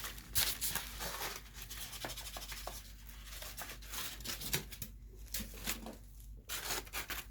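Wrapping being torn and rustled by hand as a large item is unwrapped, with many short crackles and rips.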